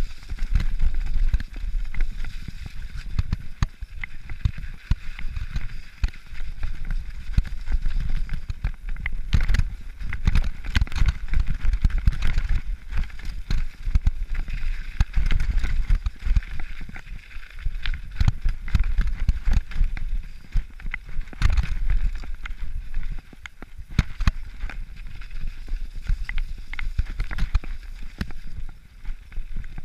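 Mountain bike riding downhill over a muddy, snow-covered trail, heard from the rider's camera: a constant low rumble of wind and tyres on the microphone, broken by frequent knocks and rattles as the bike hits bumps.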